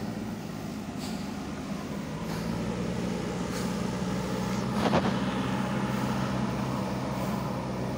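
JCB 3DX backhoe loader's diesel engine running steadily, growing louder about halfway through, with a single sharp knock about five seconds in.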